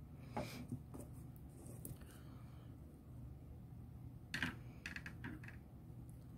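Faint, light clicks and taps of small craft tools and materials being handled on a work table: a few scattered ones early, then a quick run of about five a little past halfway.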